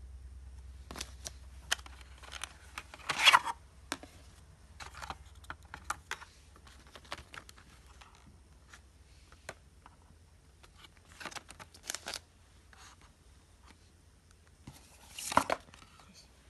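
Hands handling a smartphone's box and packaging: scattered clicks and light rustles, with two louder scraping sounds, about three seconds in and near the end.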